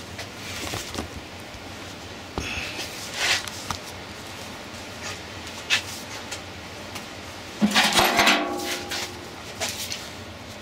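Handling noises of light knocks and rustles, then, about eight seconds in, a louder metallic clatter with a brief ringing as a steel adjustable wrench is picked up off the sheet-metal housing of a squirrel cage blower.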